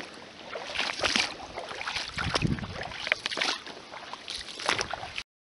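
Footsteps wading through shallow creek water, an uneven series of sloshing splashes over running water; the sound cuts off abruptly near the end.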